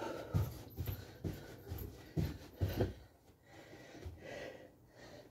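Feet thudding on the floor in a quick series, about two landings a second, as a man does jumping jacks, with heavy exertion breathing throughout. The landings stop about three seconds in, leaving just the breathing.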